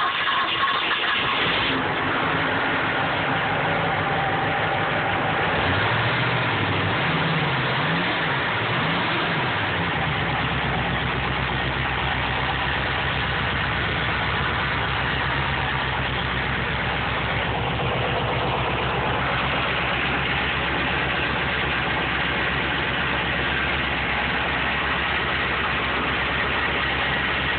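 1978 Imp boat's sterndrive engine running: it is revved up and down a few times about six to ten seconds in, then settles into a steady idle.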